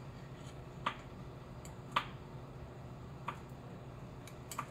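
Metal thermometer probe knocking against the inside of a stainless steel saucepan as it is stirred: four sharp clicks about a second apart, over a faint steady low hum.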